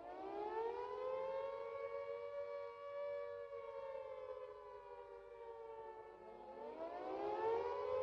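Carter civil defence siren wailing in a two-note chord: the pitch is winding up as it begins, holds, sags slowly, then winds up again near the end.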